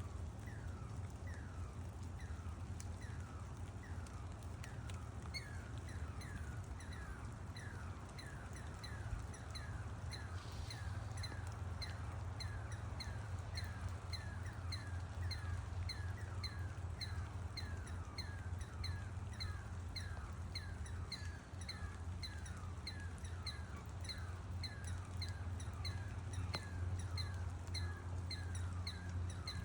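An unidentified animal calling a long, steady series of short whistled notes, each sliding down in pitch, just under two a second, like a siren. A low steady hum runs underneath.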